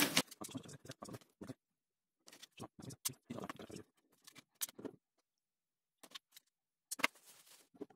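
Small clicks and rustles of hands handling a clear plastic Rubik's Clock shell and a superglue tube while gluing in its magnets, with a sharper click about three seconds in and another about a second before the end.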